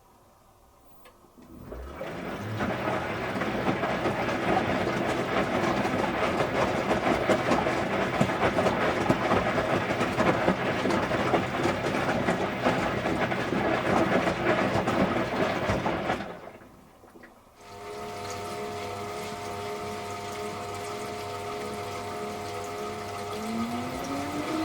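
Electrolux Wascator W355H commercial washing machine: a loud rush of water starts about two seconds in and runs for some fourteen seconds, stops, and the machine's motor then runs with a steady hum that begins to rise in pitch near the end as it speeds up.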